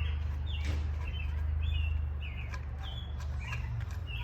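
Small birds chirping in short repeated notes, about two a second, over a steady low rumble, with a few light clicks and taps.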